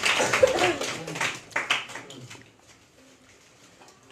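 A roomful of children clapping their hands in applause, thinning out and dying away about two seconds in.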